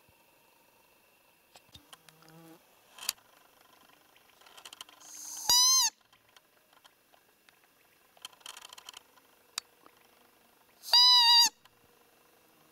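Two short, loud, high-pitched squeaks about five and a half seconds apart, each a single clean pitch that rises and dips slightly, blown on a roe deer call (lure) to imitate a doe's fiep. Faint clicks and rustles come between them.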